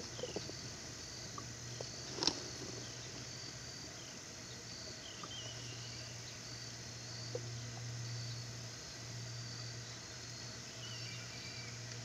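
Insects chirping in a steady, evenly spaced high pulse, with a few short wavering bird calls and a low steady hum underneath. A single sharp knock sounds about two seconds in.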